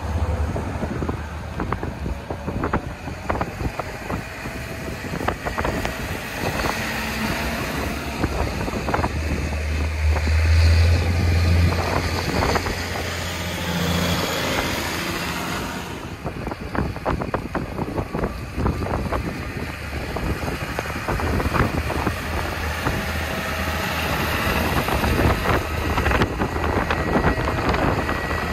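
Big diesel farm tractors driving past in a convoy, their engines running with a deep rumble that is loudest about ten seconds in as one passes close by. Wind buffets the microphone throughout.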